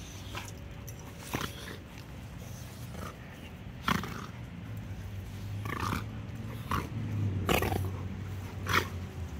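Dogs play-wrestling, with growls and about half a dozen short, sharp sounds from their mouths as they tussle.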